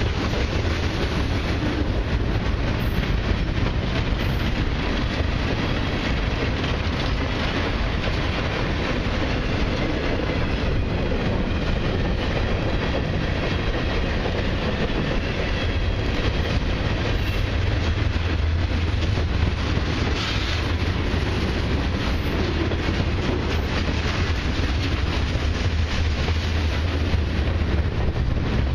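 Freight cars of a long mixed freight train rolling past close by: a steady noise of steel wheels on the rails, heaviest in the low end.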